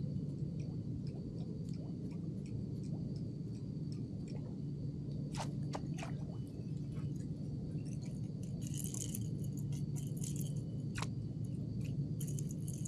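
Spinning fishing reel being worked as a lure is retrieved: scattered light clicks, with short rattling bursts about eight seconds in and again near the end, over a steady low hum.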